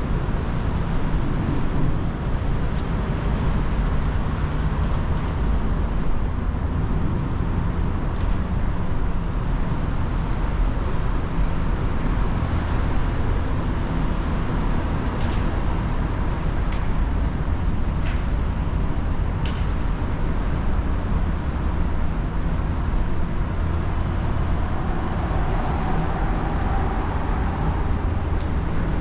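Steady rumble of city road traffic, with a few faint ticks.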